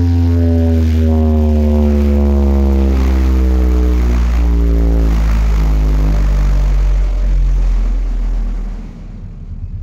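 Huge outdoor sound system playing a very loud, deep bass drone whose pitch slowly falls for about eight seconds, then fades out near the end.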